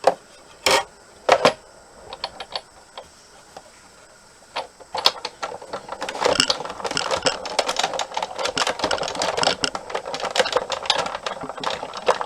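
Paper-crafting tools and card stock being handled on a work table: three sharp clicks in the first second and a half, then from about five seconds in a long run of rapid clicking and rattling.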